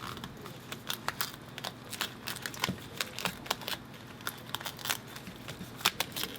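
Material being peeled up by hand from the top case of a MacBook Pro A1708: an irregular run of crinkling, crackling clicks.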